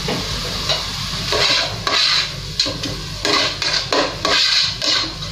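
A black plastic spoon stirring sliced mushrooms and onions frying in olive oil in a pot: a series of uneven scraping strokes over a steady sizzle.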